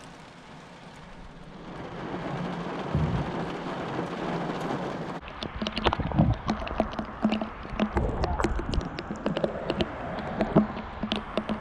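Typhoon rain and wind: a rushing noise that grows louder about two seconds in, then from about five seconds in many sharp, irregular taps of raindrops striking close to the microphone.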